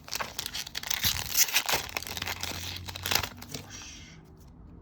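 Foil wrapper of a Magic: The Gathering set booster pack being torn open and crinkled by hand, a dense run of crackling for about three seconds that dies down to faint rustling.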